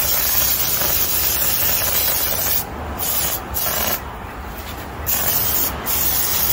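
Aerosol cleaner hissing as it is sprayed onto a bare, rusty wheel hub to clean the hub face for a new brake rotor. The spray comes in long hissing bursts, broken by a few short pauses in the second half.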